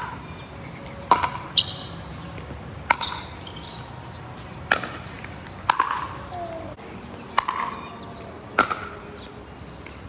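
Pickleball paddles striking a plastic pickleball back and forth in a rally: sharp pocks about once a second, around eight hits.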